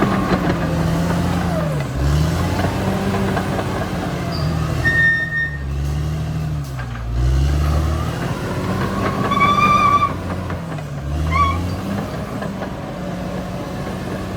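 Caterpillar D6R XL bulldozer's diesel engine running under changing load, its pitch dipping and recovering several times as it lugs. Short high squeals come from the machine, once about five seconds in and a few times near the middle.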